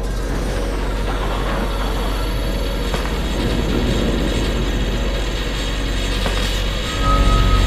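Steady street ambience with a low traffic rumble. About seven seconds in, a bass-heavy music track comes in.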